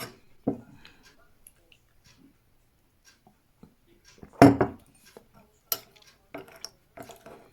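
Mug and spoon clinking and knocking: a few scattered short strokes, the loudest about four and a half seconds in.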